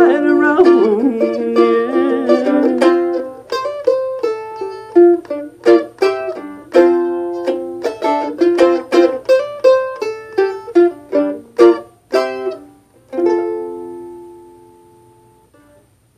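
Mandolin strummed under a last sung line, then picked in a run of single notes and short strums to close the song, ending on one chord that rings out and fades away.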